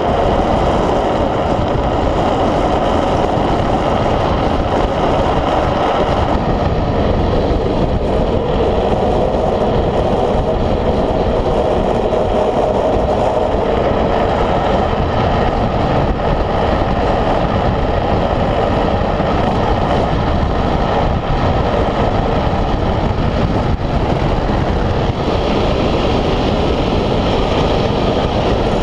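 Steady rush of wind over a helmet-mounted camera, mixed with the roll of a speed trike's wheels on asphalt, at racing speed downhill.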